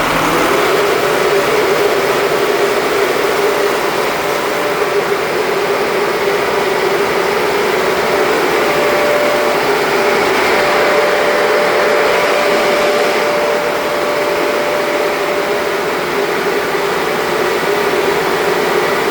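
Six-cylinder diesel engine of a fire pump running steadily at a constant speed just after starting, with a steady hum under a loud wash of noise. It runs normally after its fuel system was bled with the hand priming pump.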